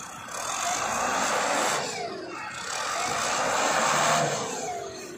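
LiuGong wheel loader's diesel engine revving up and down twice under load while the loader digs into a soil pile and lifts its bucket.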